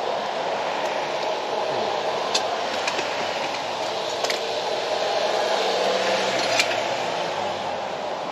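A steady rushing noise like a running fan, with a few short sharp metal clicks and taps on top, from a pry bar working at the old alternator.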